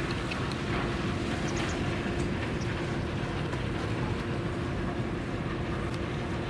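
Steady low outdoor rumble with a faint constant hum running through it and a few light ticks.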